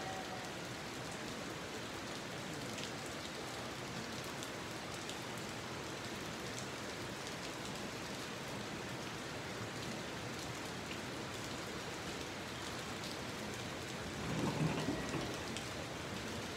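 A steady, even hiss of outdoor noise; about fourteen seconds in, a low rumble swells briefly and then falls back.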